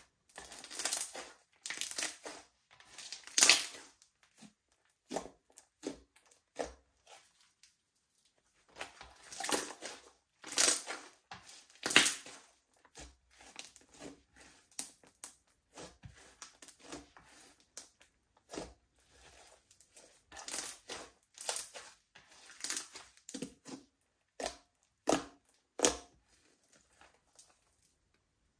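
Slime being handled and mixed by hand, giving short crackling, squishing noises in irregular bursts with pauses between them.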